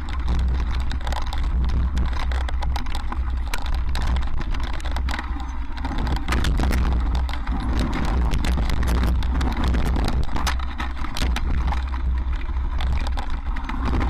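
Mountain bike rattling and clattering over loose rocks on a singletrack, with many short clicks and knocks, under a steady low rumble of wind on the helmet-mounted camera's microphone.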